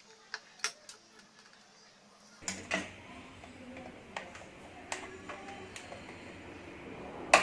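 Scattered light clicks and taps of computer hardware being handled during PC assembly, with a sharper, louder click near the end. A low steady hum comes in about two and a half seconds in.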